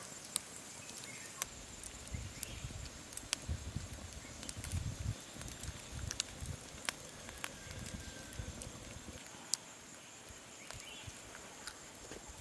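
Wood campfire crackling, with scattered sharp pops, over a faint steady high hiss; low rumbling bumps come and go from about two to nine seconds in.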